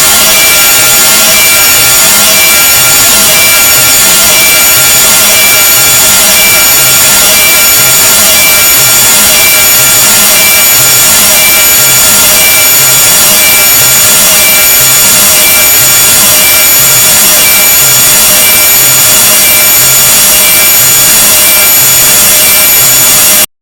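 Deliberately unpleasant noise sound effect: a very loud, harsh, grating hiss with several steady high-pitched tones through it and a faint low pulse beneath, repeating a little faster than once a second. It cuts off abruptly near the end.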